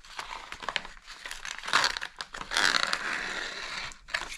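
Crinkling and tearing of watch-box packaging being handled and unwrapped by hand, with a louder, longer stretch of rustling from about two and a half seconds in.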